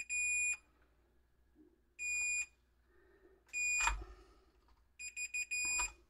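Digital multimeter's continuity beeper sounding four times, each a short high beep of about half a second, as the probes are touched across the receiver's fuses. Each beep shows the fuse is intact, not blown. The last beep breaks up at first before holding steady, and a light knock comes in the middle of the third one.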